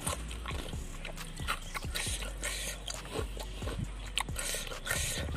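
Close-miked chewing of crisp raw vegetables: a run of short, sharp crunches at an uneven pace, over a steady low hum.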